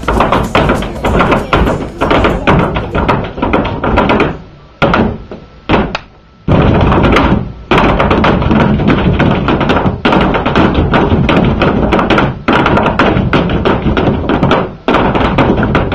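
Flamenco footwork: dancers' heeled shoes stamping rapid strikes on a stage, with flamenco music. The stamping drops to a few scattered strikes for about two seconds in the middle, then comes back in a dense run.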